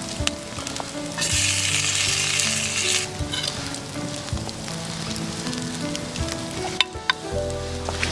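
Soft background music with a sizzling hiss over it, loudest for about two seconds shortly after the start, and scattered light clicks.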